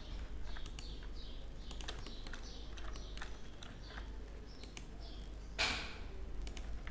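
Irregular computer keyboard and mouse clicks as shortcuts are pressed and the mouse is clicked, with faint short high chirps behind them. A short noisy burst about five and a half seconds in is the loudest sound.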